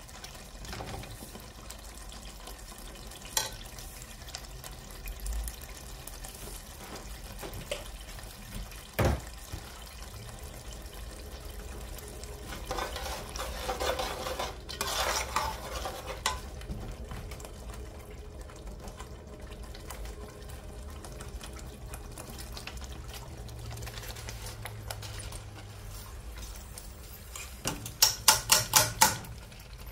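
Metal ladle stirring tomato stew in an aluminium pot, scraping and now and then knocking against the pot. Near the end, a quick run of about seven sharp metallic taps as rice is knocked out of a mesh sieve into the pot.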